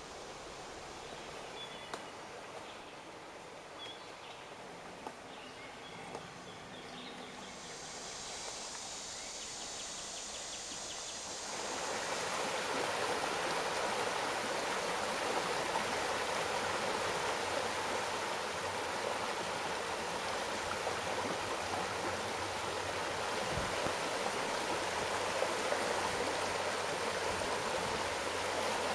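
Shallow creek water running: a steady rush that steps up louder about twelve seconds in. A few faint high chirps and small clicks sound in the first several seconds.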